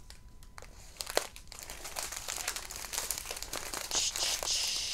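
Small plastic bags of resin diamond-painting drills crinkling and rustling as they are handled, with scattered light clicks. There is one sharper click a little over a second in, and the rustle grows denser near the end.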